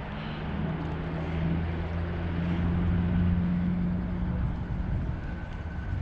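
Low steady hum of a passing engine, growing louder over the first few seconds and fading away near the end, over a hiss of wind.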